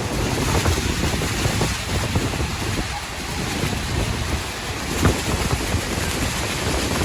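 Niagara Falls' plunging water rushing steadily and loudly, with heavy wind buffeting the microphone.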